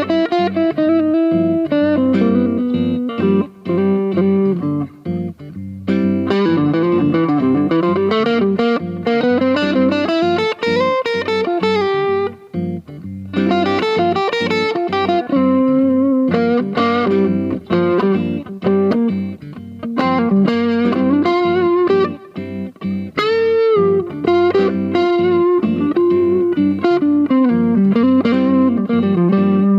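Aria Pro II PE electric guitar played through an amp: a continuous run of single-note lead lines, with notes bent and slid up and down in pitch.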